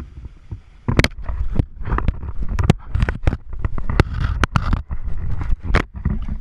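Action camera being bitten and mouthed by a crocodilian: a rapid run of sharp knocks and clatters against the camera, starting about a second in, over a heavy low rumble of handling and water noise.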